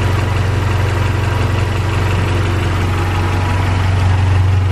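Honda Prelude's H22A4 2.2-litre DOHC VTEC four-cylinder engine idling steadily, warmed up to operating temperature.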